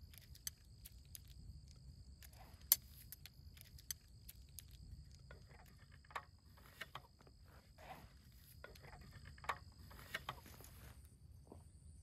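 Sharp clicks, knocks and light rattling of a folding camp table's pole sections and frame being put together, loudest about three seconds in and again near the nine-second mark. A steady high insect trilling runs underneath and stops shortly before the end.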